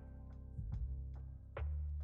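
Background music: sustained chords over deep bass notes that change about every second, with light percussive hits.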